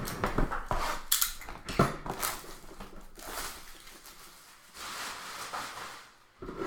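Trading-card box and pack wrappers being opened and handled: a run of sharp crackles and taps, then two longer rustles.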